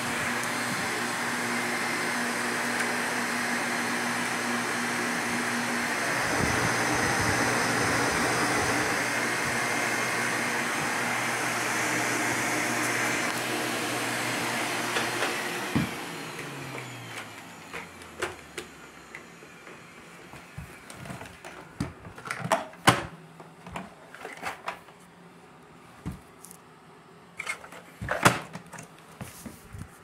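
Hoover Legacy/Duros canister vacuum cleaner running steadily, then switched off about halfway through, its motor winding down with a falling pitch over a few seconds. After that come scattered clicks and knocks.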